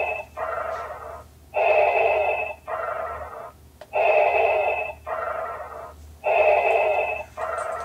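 Darth Vader's mechanical mask breathing, a repeating hiss of breaths about every two and a half seconds, each a longer, louder draw followed by a shorter, softer one.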